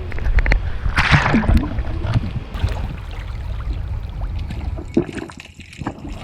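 Water sloshing and splashing around a boat, with a short burst of splashing about a second in.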